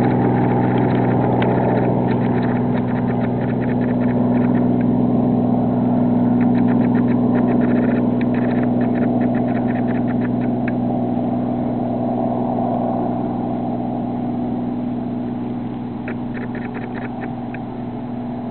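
Small two-bladed helicopter flying overhead, its rotor and engine giving a steady drone that grows fainter over the last several seconds as it moves away.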